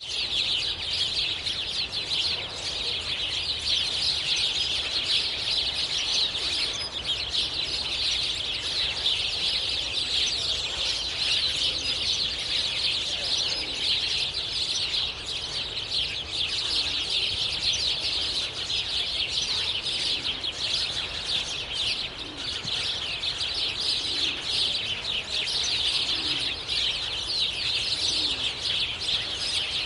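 A flock of sparrows chirping continuously, many birds at once, over a faint low rumble.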